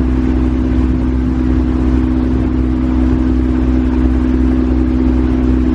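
Fishing boat's engine running steadily underway, a constant loud drone, with water rushing along the hull.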